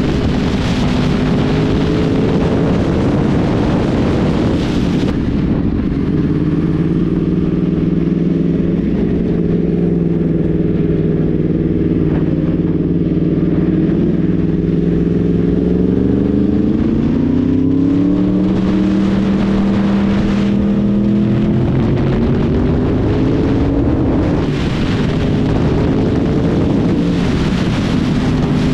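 Yamaha sport bike's engine running at road speed, heard from the rider's seat with wind hiss. The engine note sinks slowly, then climbs about two-thirds of the way through and shifts in pitch a few more times as the revs change. The wind hiss thins about five seconds in and comes back near the end.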